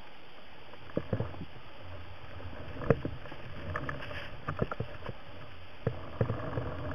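Muffled underwater sound heard through a camera housing: a steady low rumble with scattered short knocks and clicks, a pair about a second in, the loudest near three seconds, and several more later on, from the spearfisher's gear moving and bumping.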